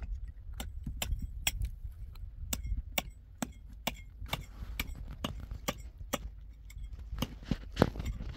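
Concrete blocks and rubble knocking and clicking against each other as they are handled, in a run of irregular hard taps about two a second, a few louder ones near the end.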